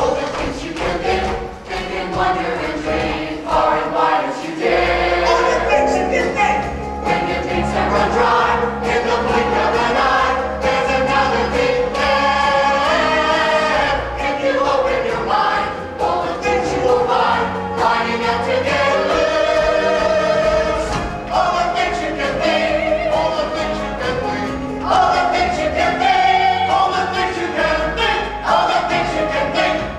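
A large stage cast of children and adults singing together in chorus over instrumental accompaniment, a musical-theatre ensemble number.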